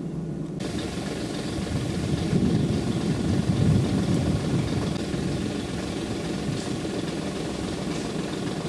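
Lancashire & Yorkshire Railway Class 27 0-6-0 steam locomotive No. 52322 running along the line, heard from on board: a dense rumble and clatter of the engine and its wheels on the track, loudest a couple of seconds in. A hiss cuts in suddenly just after the start.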